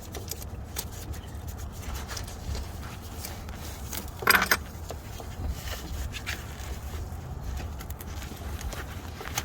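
Metal hand tools clinking and scraping against bolts, with one louder short metallic rattle about four seconds in, over a steady low hum.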